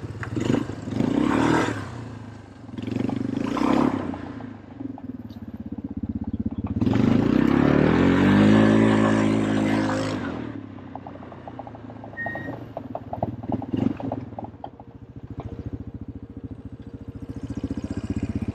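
Small off-road vehicle engine being ridden hard on a trail, revving up in two short bursts, then one long, loud rev that climbs and falls in pitch about seven to ten seconds in, before settling back to a lower, pulsing run.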